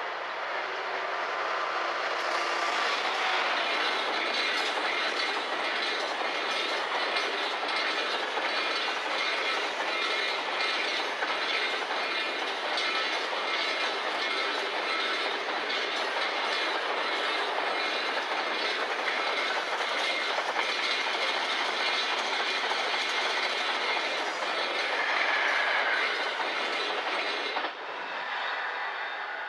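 Container freight train behind a Class 66 diesel locomotive passing close by: the sound swells about two seconds in, then a long steady run of wagon wheels clattering over the rail joints, which cuts off suddenly as the last wagon passes near the end.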